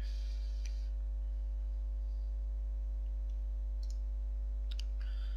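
Steady electrical mains hum with a ladder of overtones picked up on the microphone, with a few faint clicks about four and five seconds in.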